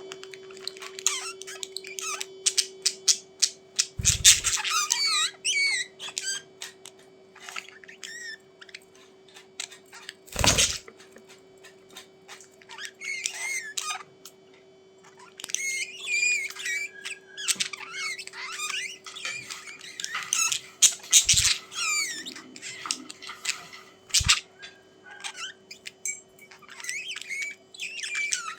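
Budgies chirping and warbling in short, rapid bursts with squeaky chatter, with a few sharp thumps among them.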